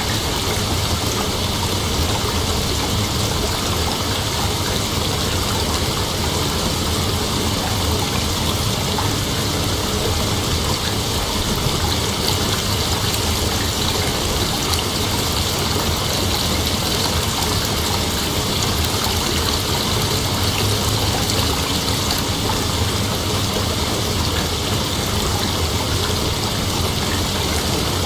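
Steady, dense chorus of night insects, an unbroken hiss-like drone with no pauses or separate calls.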